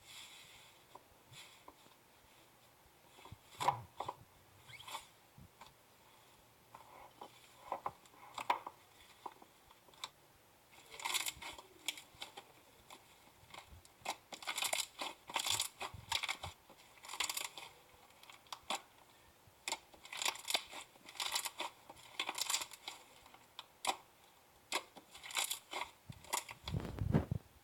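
Slime being squeezed and stretched by hand, giving runs of small crackles and pops, sparse at first and then in dense clusters. A duller, lower squish comes near the end.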